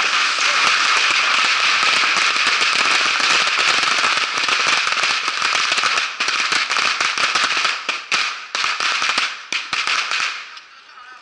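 Dense barrage of bottle rockets from a beehive fireworks rack, a continuous hissing crackle of launches and pops. After about six seconds it thins into separate sharp cracks and stops about ten seconds in.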